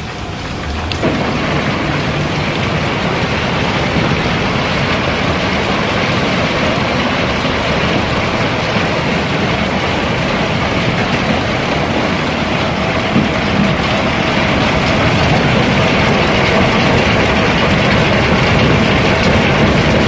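River cobblestones pouring out through the chute in a barge's hold: a dense, continuous rattle and clatter of rounded stones knocking against each other, getting a little louder after the first second.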